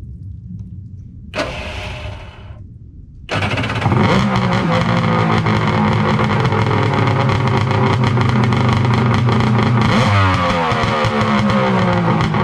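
Kawasaki 1100 two-stroke triple engine of a stand-up jet ski turning over for a couple of seconds, then catching about three seconds in and running loud and steady. The revs dip and pick up again about ten seconds in. This is its first start of the season, showing that the engine still runs.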